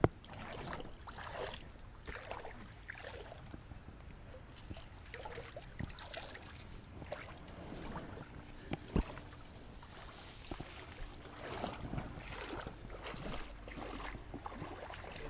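Water sloshing and splashing irregularly as a seine net is dragged through a shallow creek by people wading in it, with one sharp knock a little past the middle.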